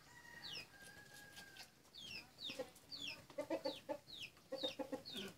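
Chickens: repeated short, high peeps that fall in pitch, and from about three seconds in, short runs of low clucking.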